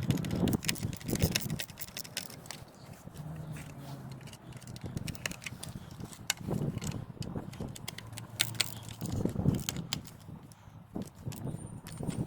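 Scattered small clicks and taps of plastic side-mirror light housing and screws being handled and driven in by hand, with a faint low hum underneath.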